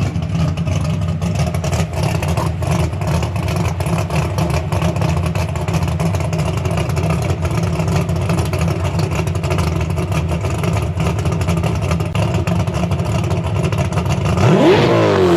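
461 cubic inch Ford Windsor small-block V8 idling through Flowmaster Flow FX mufflers with a steady, lumpy exhaust note, then a quick blip of the throttle near the end that rises and falls back.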